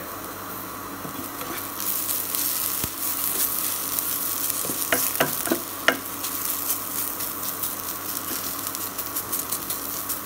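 Cut okra sizzling in oil in a nonstick pan, the sizzle growing louder about two seconds in, as the just-salted okra gives off its moisture while it crisps. A wooden spatula stirs through it, with a few quick knocks and scrapes around the middle.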